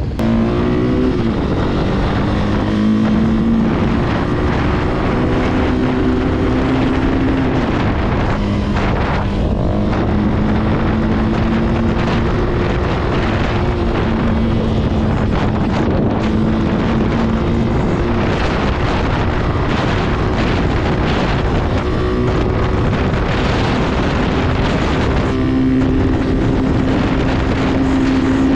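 Italika RT200 200 cc single-cylinder motorcycle engine running hard on a top-speed run, with heavy wind buffeting the microphone. The engine note dips once about a second in, then holds fairly steady at high revs.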